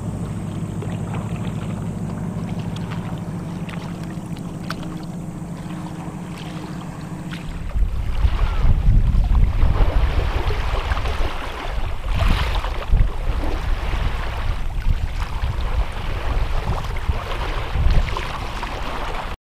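A steady, even engine drone for the first seven seconds or so, then wind buffeting the microphone in gusts, with a low rumble and sharper blasts now and then.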